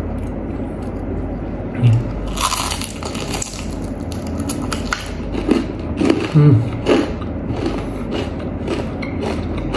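Eating crispy fried chicken close to the microphone: a sharp crunch as a piece is bitten about two and a half seconds in, with chewing and a few short hums around it.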